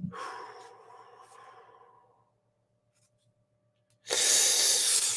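Comic book packaging being handled: a short scraping rustle that fades over about two seconds, then, about four seconds in, a louder rustle lasting about a second and a half.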